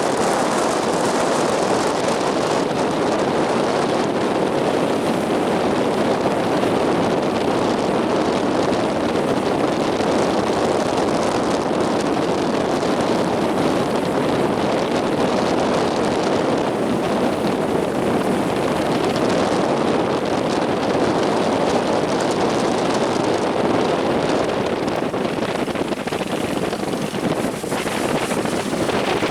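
Strong wind blowing across the microphone: a steady, loud rushing noise.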